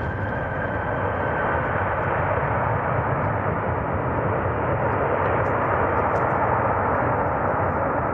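Jet airliner engines, a steady rushing noise that grows slightly louder.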